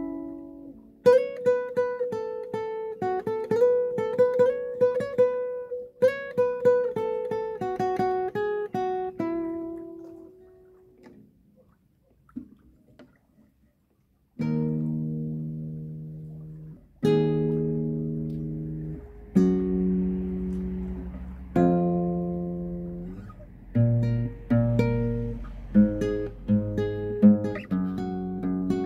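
Acoustic guitar played solo: picked notes ring and fade out to near silence, then chords start again about halfway through, struck one after another.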